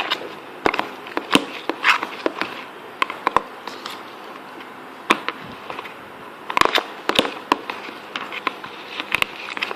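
Homemade jelly slime being squeezed and handled, giving irregular sticky clicks and small pops.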